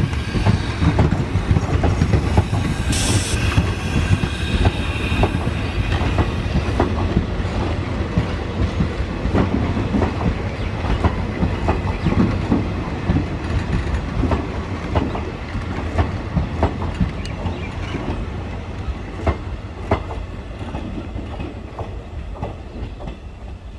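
Indian Railways passenger coaches rolling past, their wheels clicking over rail joints in a steady clickety-clack. A brief high wheel squeal comes about three seconds in. The sound fades as the last coach draws away.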